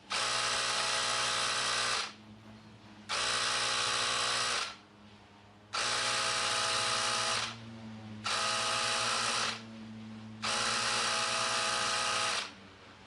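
Cordless battery-powered tire inflator's small compressor motor running as it pumps air into a car tire. It starts and stops five times, each run lasting about one to two seconds, with short pauses between.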